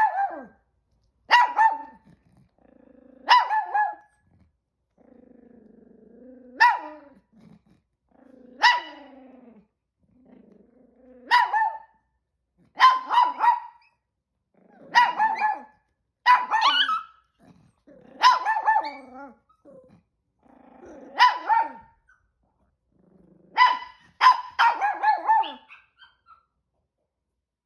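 Small Chihuahua-poodle mix dog barking repeatedly, a sharp bark about every two seconds, some in quick pairs, with low growls leading into several of the barks: anxious barking.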